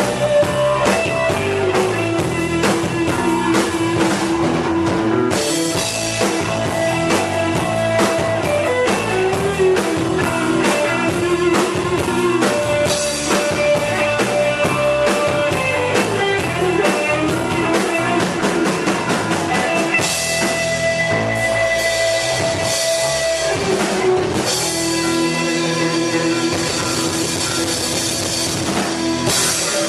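Rock band playing an instrumental passage: drum kit and guitars keep a steady beat under a melody of long held notes.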